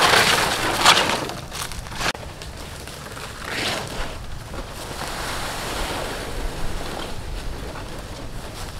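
Machete chopping through palm frond stalks, a few sharp strikes in the first two seconds, then the rustle of stiff palm fronds being cut and gathered.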